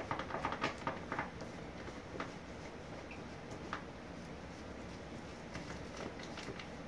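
Plastic dog food bag crinkling and rustling as a small dog noses around inside it. There is a quick flurry of crackles in the first second or so, then a few scattered faint ticks.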